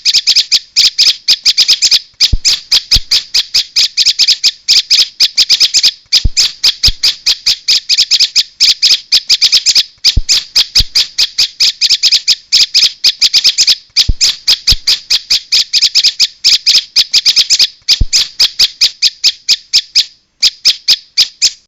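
Prenjak (prinia) call played as a trapping lure: rapid, harsh chips, about eight to ten a second, in bouts of roughly four seconds separated by short breaks.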